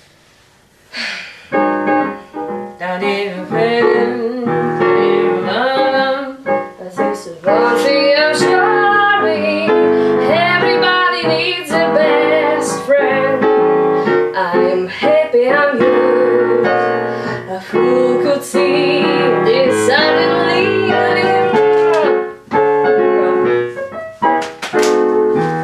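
A woman singing a jazz song with a piano accompanying her. The music starts about a second and a half in and carries on with only brief gaps.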